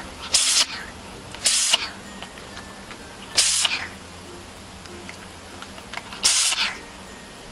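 A pet sneezing four times: short, sharp sneezes at uneven intervals.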